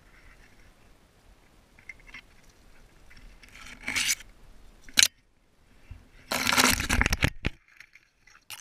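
Cedar branches rustling and scraping against a tree climber and his gear as he moves, with a sharp click about five seconds in and a longer loud scraping rustle about two seconds later.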